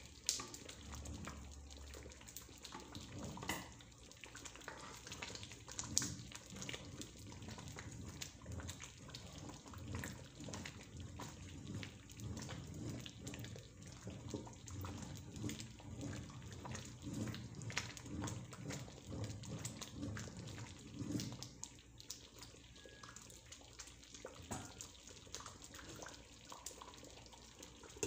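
Wooden spoon stirring and mashing soft, wet rice in a stone-coated cooking pot: irregular wet sloshing with small knocks of the spoon against the pot. The stirring eases off about three-quarters through, and a glass lid clinks onto the pot at the very end.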